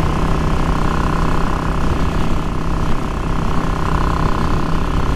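Yamaha XVS650 V-Star's V-twin engine running at a steady road speed on its newly fitted Dynatek 3000 ignition, mixed with wind rushing over the rider's camera microphone.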